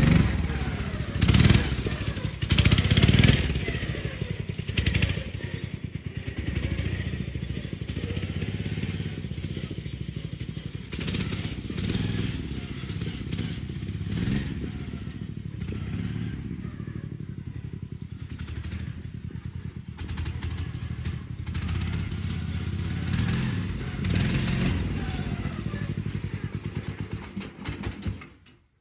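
Riding lawnmower's small engine running, revved hard a few times in the first three seconds, then running with its speed rising and falling. The sound cuts off abruptly near the end.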